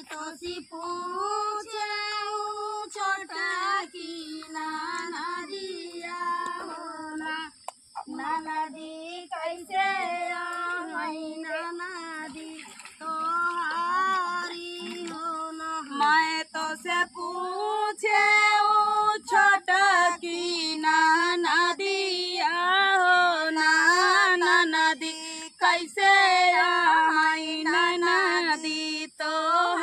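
Women singing a dehati rice-transplanting folk song (dhaan ropai kajari geet) in high, wavering voices, line after line with short breaths between phrases.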